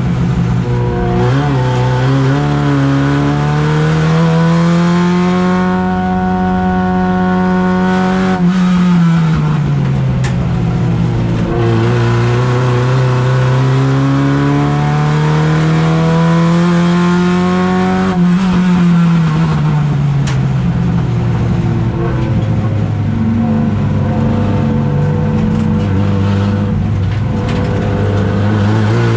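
Race car engine heard from inside its stripped, roll-caged cabin, climbing in pitch under acceleration, holding high, then dropping sharply as the driver backs off for corners about 8 and 18 seconds in, before pulling again.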